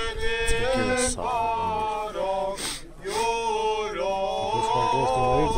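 Armenian priest chanting an unaccompanied church prayer in a man's voice. He holds long notes of about a second each with a slight waver, and takes a short breath about halfway through.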